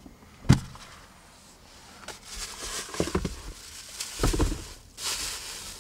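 A plastic bag rustling as it is handled, with a sharp thump about half a second in and a few knocks around three and four seconds in.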